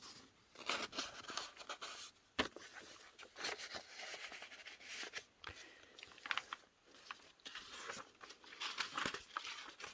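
Paper pages of a handmade junk journal being turned and handled, a soft irregular rustling and crinkling of old book and ledger paper, with a single sharp tap about two and a half seconds in.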